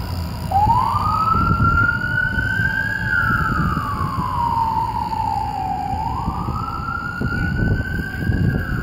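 Siren of a 2013 GMC 2500HD fire battalion chief's pickup wailing as it responds to a call, with a slow rise and fall in pitch. It comes on about half a second in, climbs, sinks, then climbs again near the end, over low street and engine rumble.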